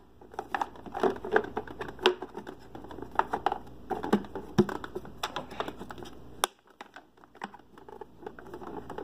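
Handling noise as the base plate of a Hoover Convertible upright vacuum is fitted back on, stiff with its added weather-stripping insulation. It sounds as scattered clicks, taps and knocks, with one sharp click about six and a half seconds in.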